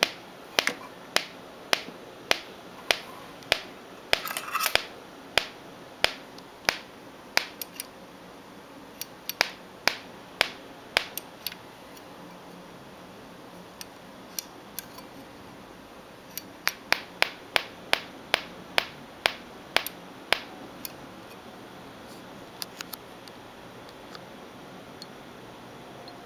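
Objective 2 (O2) headphone amplifier putting out sharp clicks, about two a second, thinning out after about eight seconds, bunching again later, and stopping a few seconds before the end over a faint hiss. The fault appears when the amp's battery is discharged.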